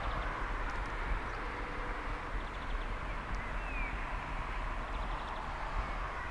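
Steam locomotive Speyerbach working toward the listener at a distance, its exhaust heard as a steady chuffing under a low rumble. A bird chirps briefly about halfway through.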